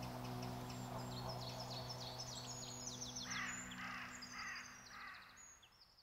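Songbirds singing quick, high chirping phrases, and a crow cawing four times from about three seconds in, over a low, steady music drone that ends near the close. The whole sound fades out at the end.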